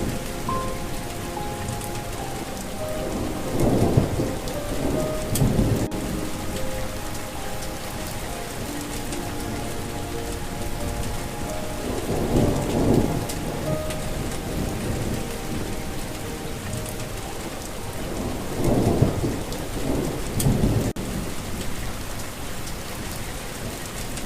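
Steady rain with thunder rolling three times, about seven seconds apart. A soft melody of gently held notes runs quietly underneath.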